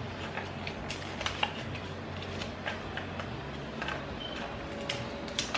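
Faint, irregular small clicks and ticks, like light handling noise, over a low steady hum.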